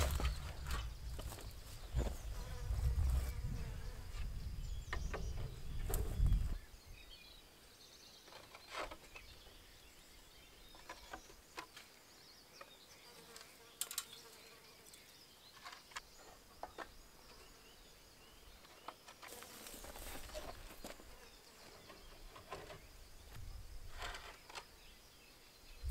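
Insects buzzing, with scattered light clicks and taps. A low rumble covers about the first six seconds and returns briefly around twenty seconds in.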